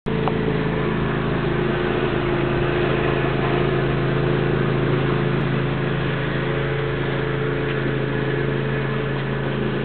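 Steady low mechanical hum of a running machine, unchanging throughout.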